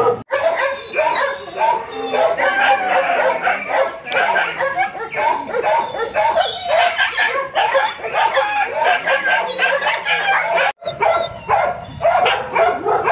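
Many dogs barking and yelping together in a continuous, overlapping chorus. It breaks off sharply twice, just after the start and about 11 seconds in.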